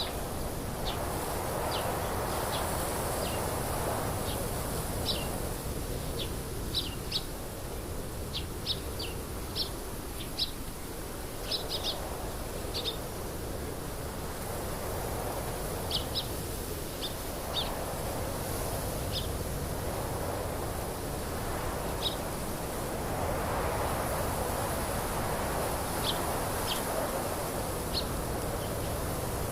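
Small birds chirping in short, scattered single notes over a steady outdoor rushing noise that swells and fades every few seconds.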